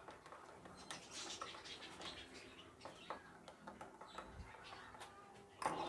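Metal spoon stirring milk with cocoa powder and flour in a ceramic mug: faint, quick, irregular clinks and scrapes against the mug, with a louder knock near the end.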